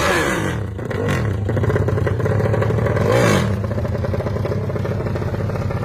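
Drag-built Honda Sonic motorcycle engine, bored out to 500cc and fitted with a Herex open exhaust, running at a steady low rev. There is one quick throttle blip about three seconds in.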